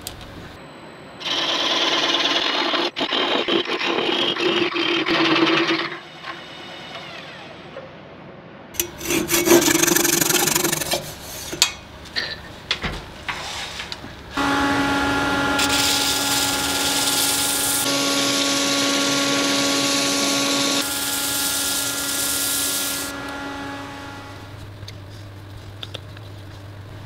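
Wood being rubbed and abraded in two loud bursts, then about nine seconds of steady rubbing over a constant motor whine: sanding wood on a running wood lathe.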